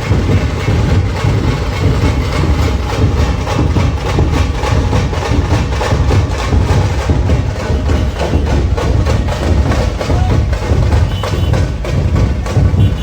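Loud, drum-heavy music with a fast, dense beat and a deep low end.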